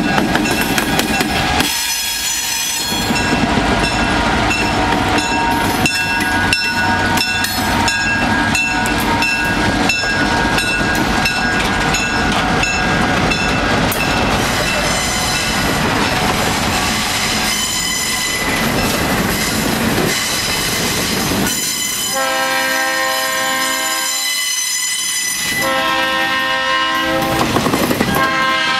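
A diesel-hauled freight train passing close by: the locomotive goes by first, then a long string of boxcars and flatcars, wheels clicking steadily over the rail joints. A train horn sounds in long steady blasts in the last several seconds.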